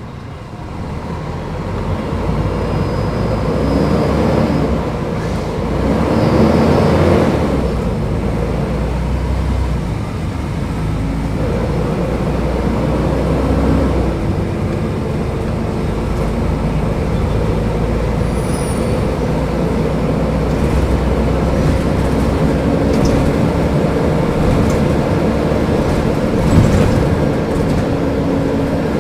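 Mercedes-Benz O500UDA articulated city bus's diesel engine getting louder as the bus pulls away, its pitch climbing and dropping through the gears in the first several seconds, then running steadily under way. One brief sharp knock comes near the end.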